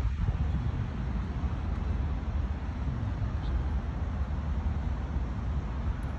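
Steady low rumble of outdoor city background noise, with street traffic the likely source.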